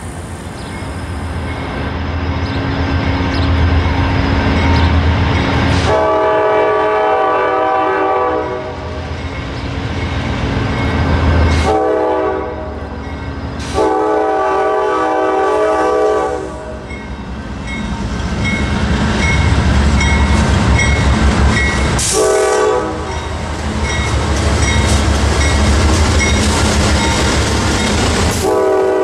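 Diesel freight locomotive horn sounding five blasts, long ones of two to three seconds alternating with short ones, over the steady rumble of the locomotives' engines and the rolling train. In the gap between blasts a bell rings steadily.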